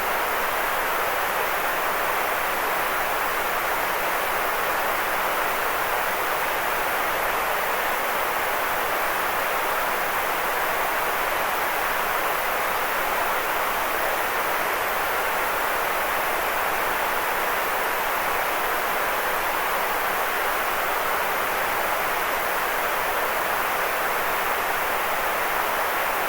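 Steady electronic white noise, an even hiss that never changes, strongest in the middle range with little low rumble.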